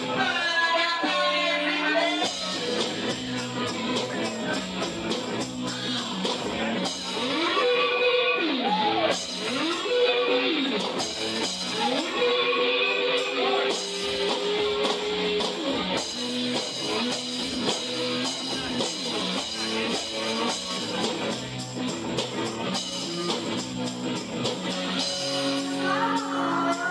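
Live music: a man singing into a microphone while playing a guitar.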